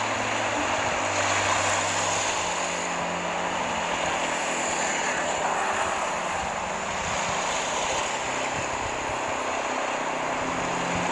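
A motor runs at a steady pitch under a constant rushing noise of wind or water, with the engine's low hum shifting slightly now and then.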